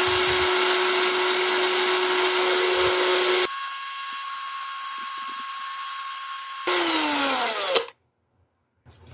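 Cordless drill spinning a small 3D-printed bearing held on its shaft between the fingers, running at steady speed with a steady motor whine. After about three and a half seconds the sound drops to a quieter, higher whine for about three seconds. Then the full drill sound returns and the motor winds down, its pitch falling, stopping about a second before the end.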